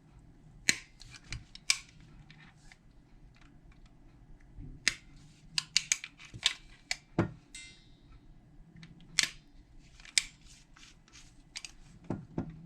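Irregular sharp clicks and taps of small lock parts and hand tools being handled while a car door lock cylinder is taken apart, with a short buzzy rattle about halfway through and a couple of duller knocks near the end.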